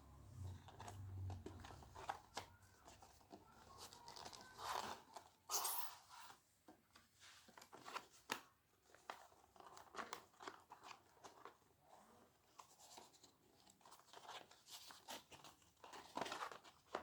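Packaging being handled by hand while unboxing: irregular crinkling, rustling and tearing with sharp little clicks of plastic and cardboard.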